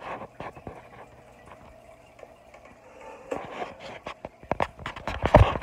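Handling noise from a phone being moved about: scattered clicks and knocks, louder in the last second or so, over a low steady hum that stops about three seconds in.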